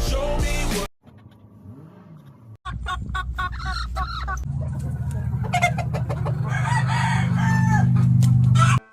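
Chickens clucking and calling, with many short clicks and a steady low hum beneath that grows louder toward the end; the last of some music is heard in the first second.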